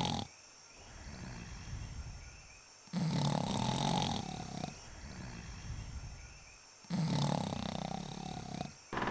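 Two drawn-out yawns, each about a second and a half long, with a pitch that sinks slightly towards the end. A quieter breath comes before each one.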